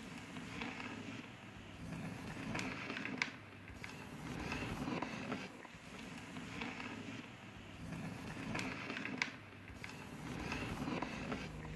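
Opening of an ambient electroacoustic sound-art piece: a grainy, textured noise that swells and fades in slow waves every two or three seconds, with two sharp clicks about six seconds apart.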